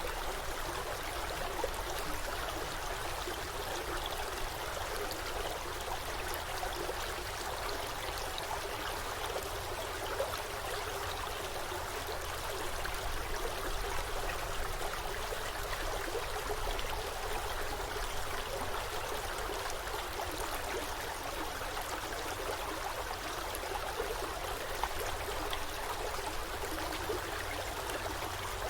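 Forest stream flowing steadily over rocks, a continuous rushing and trickling of water with small splashes flickering through it.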